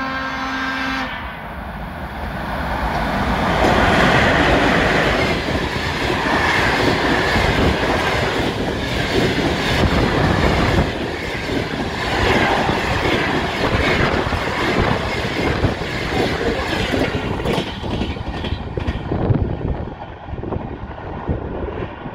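A ChS7 electric locomotive sounds one horn blast about a second long as it approaches. It then runs through at about 120 km/h with a passenger train: a rising rush of wind and running noise peaks as the locomotive passes, followed by the rapid clickety-clack of the carriage wheels over the rail joints, which eases somewhat near the end.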